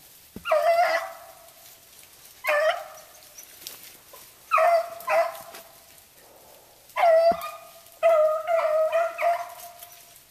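Beagles baying as they run a rabbit's track, in short bouts of barks every couple of seconds, the last bout a quick run of several barks.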